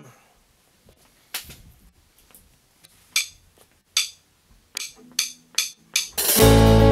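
Drummer's count-in: sparse sharp clicks, the clearest about four of them just under a second apart, then near the end the full rock band comes in at once with electric guitars, bass and drums.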